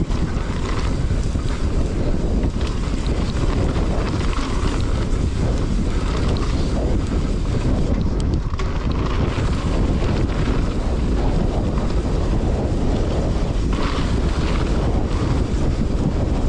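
Wind buffeting the action camera's microphone while a mountain bike is ridden, a steady loud low rumble.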